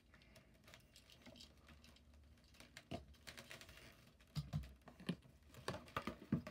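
Faint, scattered small clicks and taps of a die-cast toy car and its card packaging being handled and set down on a tabletop, with a few sharper taps in the second half.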